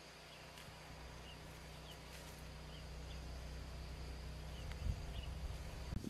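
Faint outdoor ambience: a steady low hum under scattered short, high chirps and a thin steady high tone, with a soft low thump near the end.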